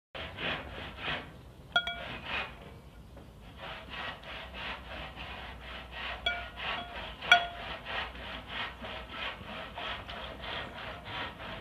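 Close-up chewing: a rhythmic wet crunching, about three chews a second. A metal spoon clinks sharply three times, with a short ringing tone; the third clink is the loudest.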